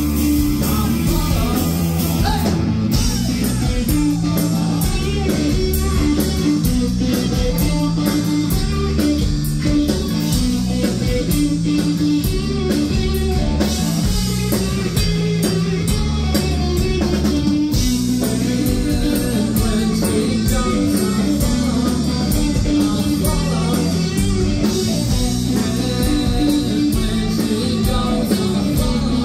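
Live rock band playing loud: distorted electric guitar, bass guitar and drum kit, with a man singing over them.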